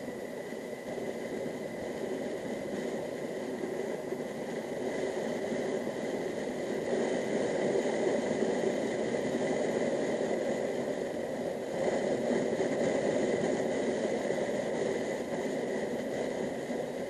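Motorcycle running on the road, its engine mixed with wind and road noise; it grows louder through the middle and eases off near the end.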